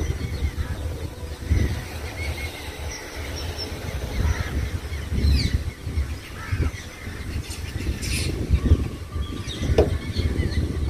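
Wind buffeting the microphone in uneven gusts, with scattered short, high chirps and calls from animals in the trees.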